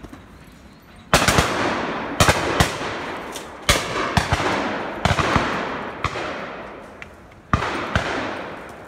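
Shotguns firing repeatedly, several shots coming in quick pairs, each bang echoing off for about a second.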